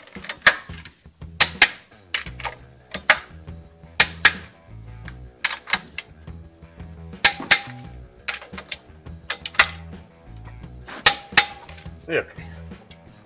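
Background music with a steady beat: repeating bass notes under sharp percussive hits about once a second, often in pairs.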